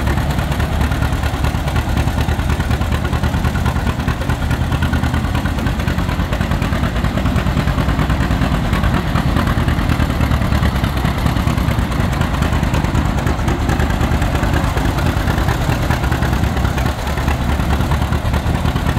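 John Deere Model A tractor's two-cylinder engine running at a steady speed while the tractor is driven, with an even, rapid exhaust beat.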